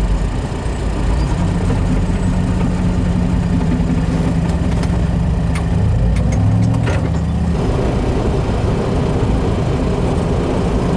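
Armoured vehicle engines running as tracked Ulan infantry fighting vehicles drive along a dirt track, heard from inside a following vehicle: a steady low drone, with a few sharp ticks about halfway through.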